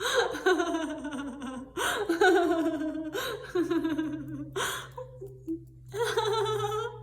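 A woman laughing heartily in a string of laughing bursts with short catches of breath between them, as a laughter yoga exercise.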